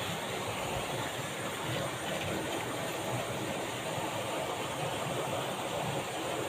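Steady background noise: an even hiss over a low, wavering rumble, with no distinct events.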